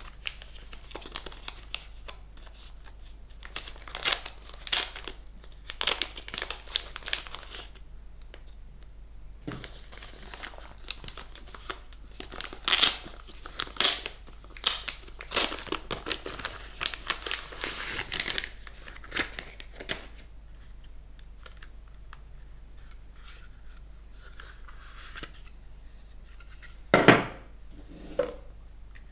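Clear plastic packaging bag crinkling and rustling in bursts as it is pulled and peeled off a small handheld camera, with cardboard box packaging sliding against it. The rustling thins out in the later part, and a single sharp knock comes near the end.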